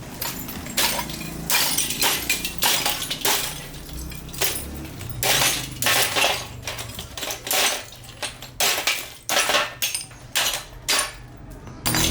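Television being broken apart by hand: a run of sharp cracks and clinks of glass and hard casing, about one to two a second.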